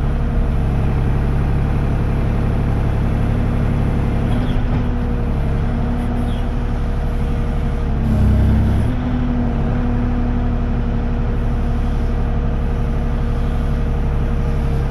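Kubota KX040 mini excavator's diesel engine running steadily while the boom and bucket dig. A little past eight seconds in, the engine note briefly drops in pitch and gets louder for under a second, then settles back.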